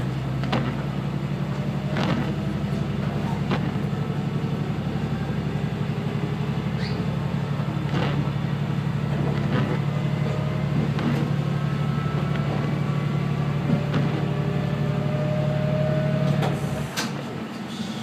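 Diesel railcar's engine running steadily under power, a strong low hum, with scattered sharp clicks from the running gear. About a second before the end the engine note drops away and the sound gets quieter, as the power comes off.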